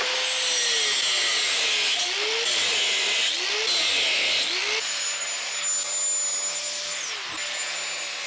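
Angle grinder cutting and grinding cast aluminum, its motor pitch dipping and recovering over and over as the disc bites and eases off. From about five seconds in it runs steadier, with a thin high whine.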